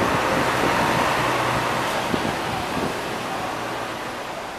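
Diesel city bus pulling away slowly, its engine hum and road noise fading gradually as it moves off.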